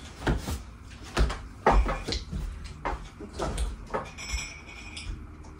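Spoons clicking against bowls and bowls set down on a glass-topped table: a scatter of short, light knocks, several of them a second apart, with a few low thumps.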